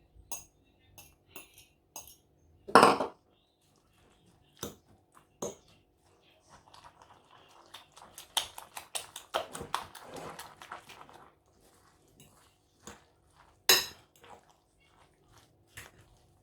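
Six eggs being cracked against a bowl and added to a mixture, with sharp knocks and clinks of shell, bowl and utensils. There is a quick run of clinking about halfway through.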